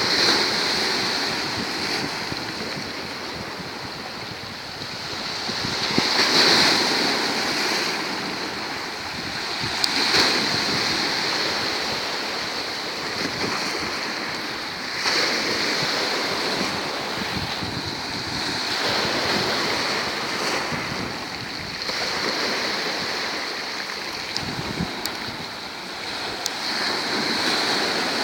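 Black Sea waves breaking on the shore, the surf swelling and falling back every few seconds.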